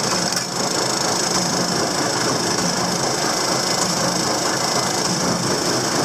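Tractor engine at full throttle driving a Krone baler, the machine running steadily. It is run wide open to test the stuffer trip adjustment.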